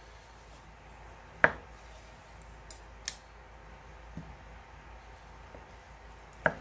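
Chef's knife slicing through a smoked brisket flat on a wooden cutting board, the blade knocking on the board as slices come off: one sharp knock about a second and a half in, a few faint taps, and another sharp knock near the end.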